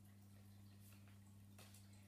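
Near silence: room tone with a steady low hum and a couple of faint ticks.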